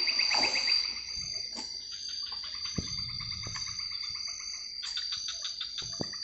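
Night insect chorus in tropical forest: a steady high-pitched buzz with rapid pulsed trills layered over it, broken by a few sharp knocks.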